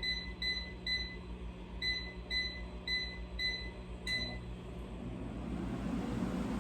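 Air fryer control panel beeping as its buttons are pressed to set the cooking time, about eight short high beeps at roughly two a second with a short pause after the first three. About five seconds in the beeps stop and a steady rushing sound builds as the air fryer's fan starts up.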